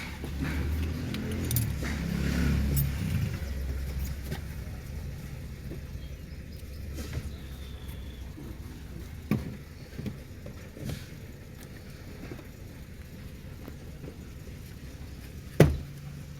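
Keys jangling over the low, steady rumble of a Ford Fiesta, with a few light clicks and one sharp knock near the end.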